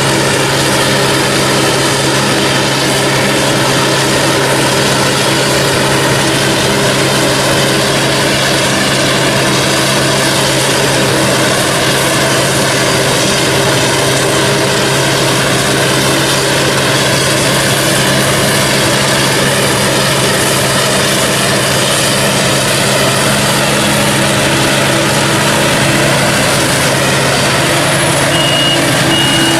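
Heavy diesel farm machinery running steadily, a forage harvester and tractor at work harvesting maize. A short repeated high beep sounds near the end.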